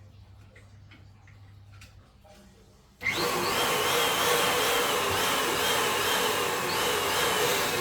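Steam whistle blowing: it starts abruptly about three seconds in, with a loud rushing hiss under a wavering high whistle tone, and is held steady almost to the end, where its pitch begins to sag.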